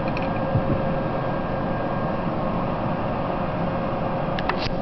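Steady mechanical hum with a constant tone. A few light clicks come just after the start, and a short cluster of clicks near the end as the metal cross-bar of the shear apparatus is handled.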